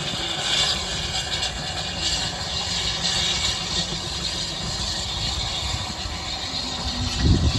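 Steady rumble and hiss of a train running along the track, heard from on board a moving carriage. There is one heavy knock near the end.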